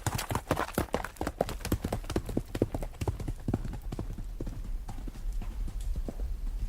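Clip-clop of horse hoofbeats: a quick, uneven run of hard strikes, several a second, growing fainter in the second half.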